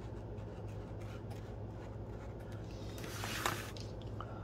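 Quiet handling sounds at a craft desk: faint ticks of a marker on journal paper, then about three seconds in a brief swish as the journal is slid and turned on the cutting mat. A steady low hum runs underneath.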